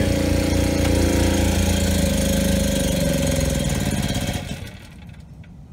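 Predator 3200-watt portable generator's engine running under a load of about 2,850 watts from two space heaters. It bogs down, its pitch sagging from about two seconds in, and it stalls and dies out about four and a half seconds in, unable to carry a load below its 3,200-watt rating even after the carburetor was cleaned twice.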